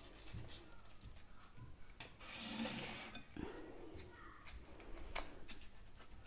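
Faint rustling and rubbing of a small cotton cloth as hands fold and twist it around a bundle of whole spices and tie it closed. The rustle is longest about two and a half seconds in, and a few short clicks come through, the sharpest about five seconds in.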